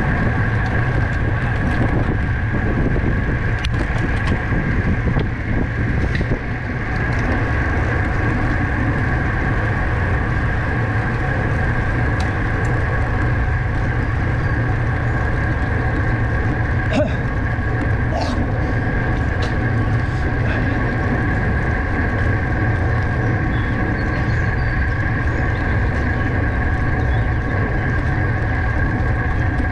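Steady wind rush and rumble over the microphone of a camera on a racing bicycle in motion, with a constant drivetrain and tyre hum and a few faint clicks about two-thirds of the way through.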